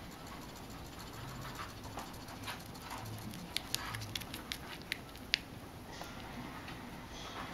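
Newborn rabbit kit suckling at its mother's nipple: a soft, irregular smacking patter, with a quick run of about eight sharp clicks around the middle.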